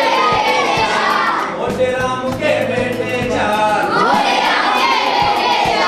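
A group of children singing or chanting together in unison, several voices at once, with a few short sharp knocks among them.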